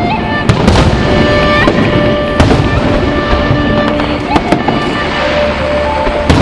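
Aerial fireworks shells bursting in several sharp bangs, a second or two apart, over music from the show's radio simulcast playing throughout.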